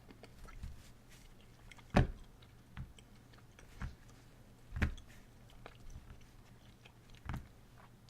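A person chewing Skittles with the mouth close to the microphone, with a few short sharp clicks or knocks, the loudest about two seconds in, and others near the middle and near the end.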